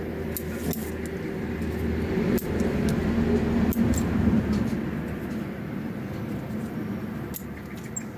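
A motor vehicle passing, its low engine hum swelling to a peak about four seconds in and then fading. Over it, bonsai scissors snip privet shoots with several short, sharp clicks.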